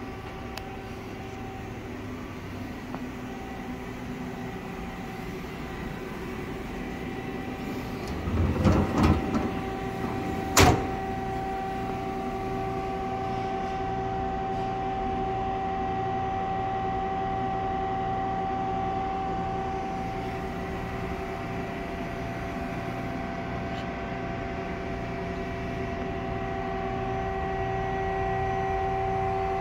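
Femco Durga-25E CNC turning center powered up and idling: a steady mechanical hum with a few steady whining tones from its motors and hydraulics. About eight seconds in, the sliding guard door rattles open and stops with one sharp clunk.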